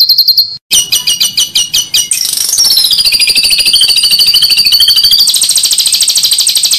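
Loud songbird song on a masteran tutoring recording for white-rumped shamas: very fast, high trills. A short break comes about half a second in, then a trill that slides down in pitch, changing to a higher trill near the end, which cuts off abruptly.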